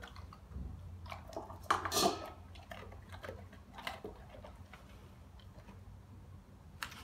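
German Shepherd eating dry kibble from a stainless steel bowl: irregular crunches of chewing, with clinks of kibble and teeth against the metal, loudest about two seconds in.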